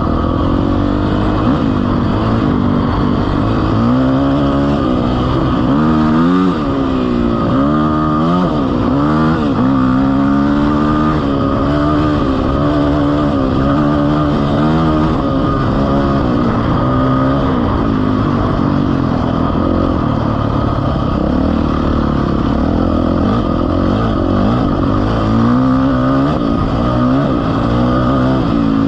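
A vehicle engine running and revving, its pitch rising and falling over and over, most busily from about four to ten seconds in and again near the end.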